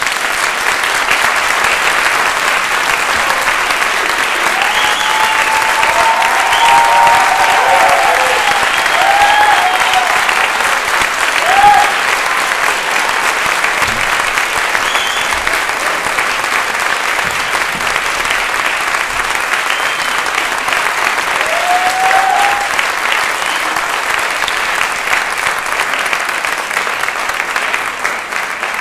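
Theatre audience applauding steadily, with a few shouted cheers rising above the clapping in the first half and one more later.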